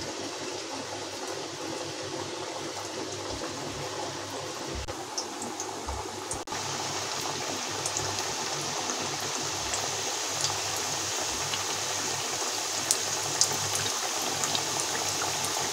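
Mathri dough discs deep-frying in hot oil in a steel kadhai, a steady sizzle with small crackling pops, somewhat louder after a brief break about six seconds in.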